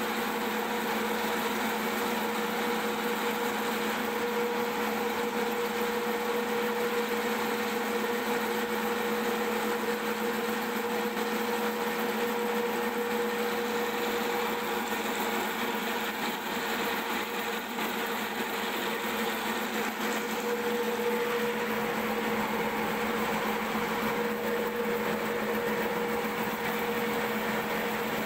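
Soybean cracking and hull-separating machine running steadily: a constant motor hum over the rushing of cracked soybeans streaming down its chute.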